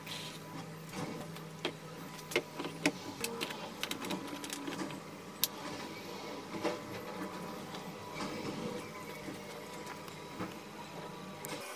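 Clicks and knocks of hands setting up a rust-removal electrolysis bath: a rusty hatchet head in a plastic tub of washing-soda water, with metal alligator clamps clipped onto the head and the steel anode. A low steady hum runs under the clicks and stops about three seconds in.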